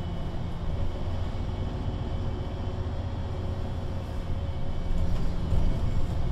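VDL Citea LLE 120 city bus's Euro 6 diesel engine idling steadily while the bus stands at a stop, a low hum that grows a little louder about five seconds in.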